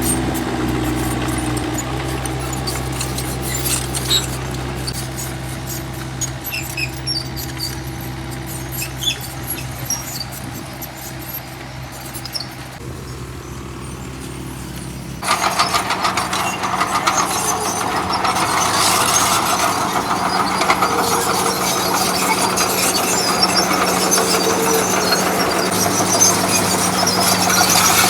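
Excavator diesel engine running steadily. About halfway through it turns suddenly louder and harsher, at a higher engine note, with a squealing, grinding noise on top.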